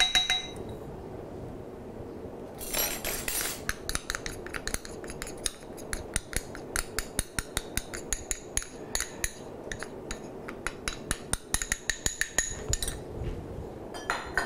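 Metal wire whisk tapping and scraping against glass bowls while cornstarch is knocked out of a small glass bowl into beaten egg yolks. It makes a run of quick light clicks and clinks with a glassy ring, thickest about three seconds in and again near the end.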